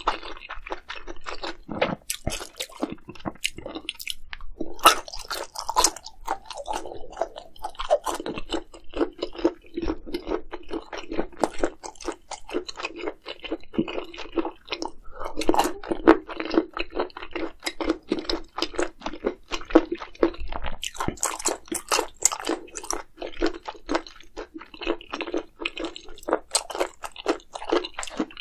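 A person chewing and biting food close to the microphone: a quick, irregular run of small crunches and wet mouth clicks.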